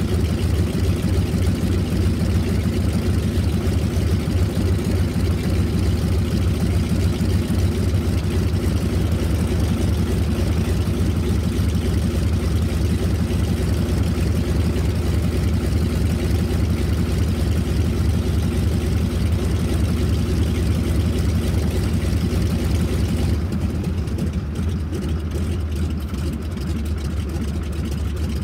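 Spartan Executive's nine-cylinder Pratt & Whitney R-985 Wasp Junior radial engine running steadily on the ground with the propeller turning. Near the end it drops in level and sounds duller.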